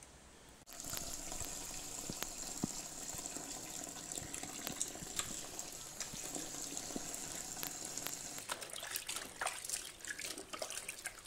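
Tap water pouring into a small sink basin full of clothes being hand-washed, a steady splashing. About eight seconds in the flow stops and the wet clothes are squished and sloshed by hand in the basin.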